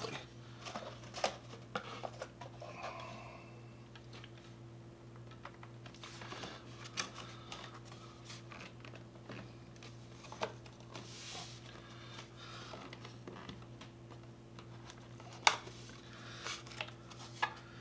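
Scattered small clicks and scrapes from a glass 3D-printer build plate and cardboard corner guides being handled and pressed into place on a desk, with one sharper knock about fifteen seconds in, over a steady low hum.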